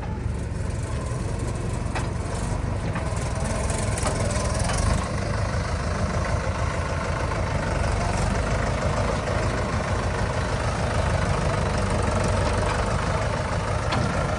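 Diesel engine of a heavy machine running steadily at a low, even pace, close by.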